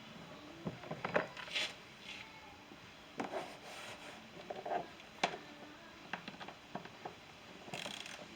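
Scattered small clicks, taps and short scrapes of hand tools and door trim parts being handled during disassembly of a pickup's rear door, with two brief hissing scrapes.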